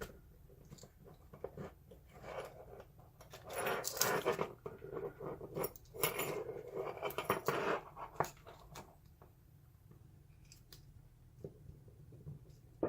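Small metal tools clicking and scraping against the inner retaining clip of a euro cylinder lock as it is pried at. The sounds come in short irregular flurries, with a few lone ticks between them.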